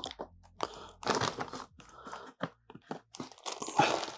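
Clear plastic fish shipping bag crinkling and rustling in irregular bursts as it is handled and opened.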